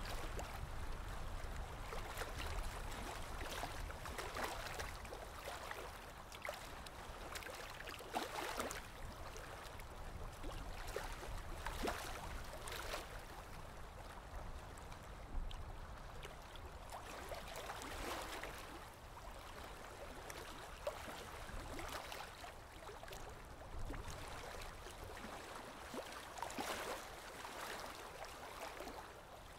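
Aquarium water trickling and gurgling, swelling and easing every few seconds, over a low hum that fades about halfway through.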